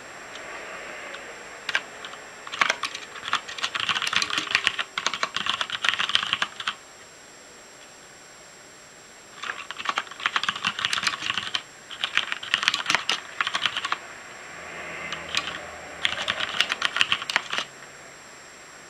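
Typing on a Noppoo Choc Mini mechanical keyboard with Cherry MX Black linear switches: rapid keystroke clatter in four bursts of a few seconds each, with short pauses between them.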